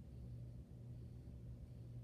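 Quiet room tone with a steady low hum.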